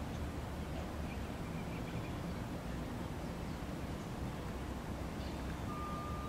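Outdoor marsh ambience: a steady low rumble with faint, scattered bird chirps over it. Near the end a thin, steady high tone begins and holds.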